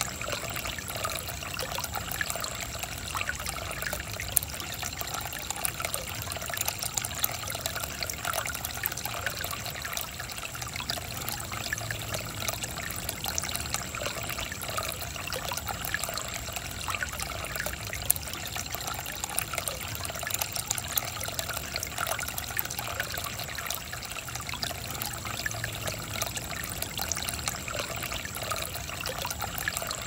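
Water pouring steadily from a bamboo spout onto wet rocks, a continuous trickle and patter of small splashes into a shallow stream.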